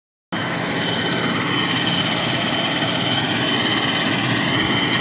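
ATR 72 turboprop engine running on the apron: a steady, loud turbine whine with high held tones over an even roar, cutting in abruptly just after the start.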